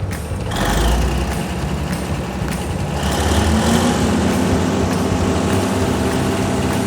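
Large truck engine running steadily. It comes in about half a second in, and a steady low hum settles in about three seconds in.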